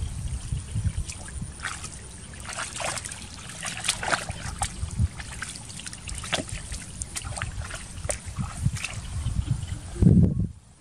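Shallow muddy water sloshing and splashing as a person wades and gropes by hand in the mud, with many small scattered splashes and drips. A brief loud low thump comes near the end.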